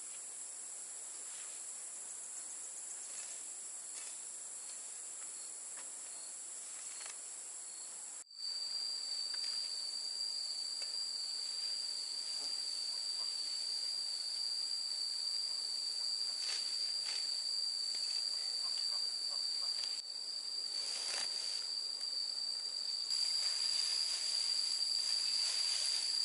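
Steady high-pitched chorus of insects, a continuous shrill drone without let-up. The sound breaks off abruptly about eight seconds in and resumes louder. Faint light rustles come and go under it.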